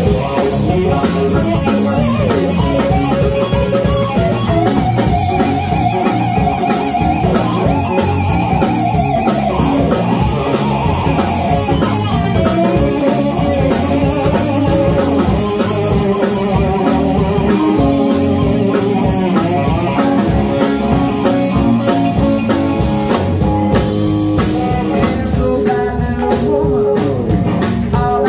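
Live rock band playing: electric guitar over electric bass, drum kit and keyboard, with held, wavering notes a few seconds in.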